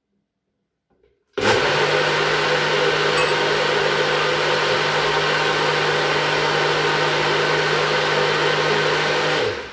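Enkho personal blender running. The motor starts about a second and a half in, runs at a steady pitch while blending, then spins down and stops just before the end.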